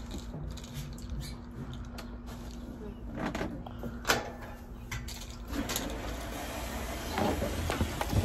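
Handling knocks and clicks at a top-loading washing machine, as hands work at its rim and lid: a few sharp knocks spread through, more of them near the end, over a faint low hum that stops about halfway through.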